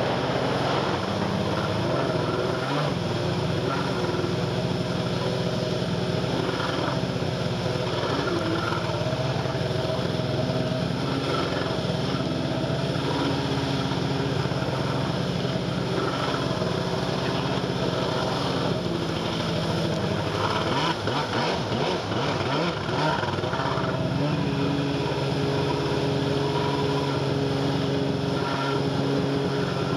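Jet ski engine running steadily at low speed, its pitch wavering for a few seconds about two-thirds of the way through before settling again.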